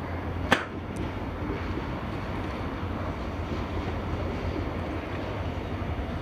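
Low, steady rumble of a train approaching along the track, with wind buffeting the microphone. A single sharp click about half a second in.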